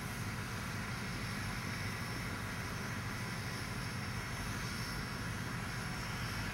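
Steady background rumble and hiss with a faint high tone, unchanging and with no distinct events.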